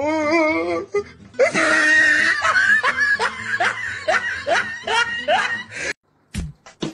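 A drawn-out, wavering voiced cry, then hearty laughter with repeated ha-ha peaks about two a second. Near the end the laughter cuts off and a beat of music with sharp, regular strikes starts.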